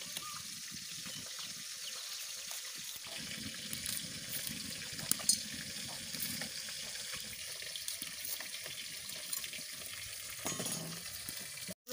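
Watery rustling of freshly cut bitter gourd pieces in a wet steel bowl, with a couple of sharp clicks about five seconds in.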